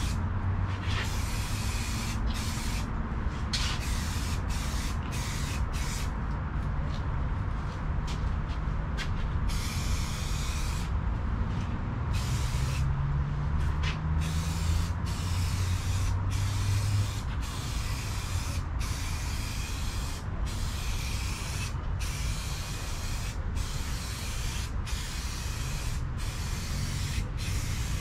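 Aerosol spray can of primer hissing in repeated passes, broken by frequent short pauses, over a low rumble in the background.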